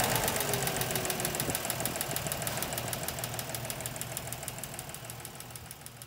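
An engine idling with a fast, even ticking, fading out steadily.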